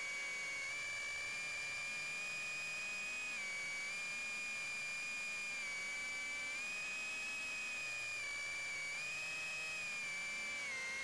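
High-pitched whine of a BetaFPV Beta75 HD whoop quadcopter's brushless motors and ducted propellers in flight, heard from close on board. The pitch stays fairly steady, dipping and rising slightly a few times with throttle.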